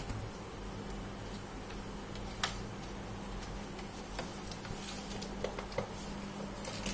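Low steady hum of room tone with a few light, separate clicks and taps, as the steel jar of a mixer-grinder is handled and set on the machine; the grinder motor is not running.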